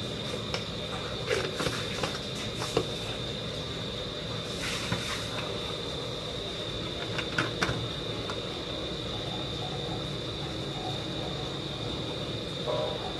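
Steady background hum with a faint high whine, broken by a few light clicks and knocks as a spoon and seasoning jars are handled over an aluminium cooking pot.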